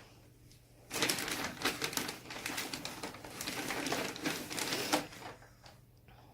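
Packaging crinkling and rustling as Funko Pop boxes are handled and pulled from a shipping box: a dense run of small crackles lasting about four seconds, starting about a second in.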